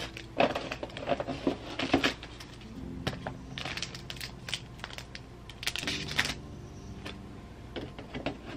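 Plastic packaging bags crinkling and rustling in several short bursts, with clicks and taps as accessories are handled in a cardboard unboxing tray.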